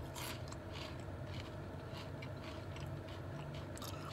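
A person chewing a mouthful of crunchy spicy pepper chips with the mouth closed, soft irregular crunches every fraction of a second.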